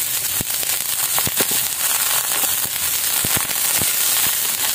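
Fresh fiddlehead fern (pako) shoots frying in a hot wok with garlic, onion and ginger: a steady sizzle with frequent sharp pops and crackles as the wet greens hit the oil and are tossed.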